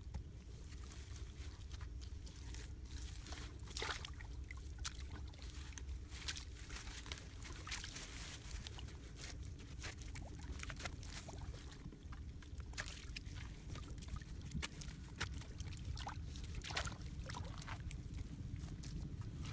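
Bare hands squelching and scooping through wet mud and muddy water, with many short irregular wet slaps and clicks over a steady low rumble.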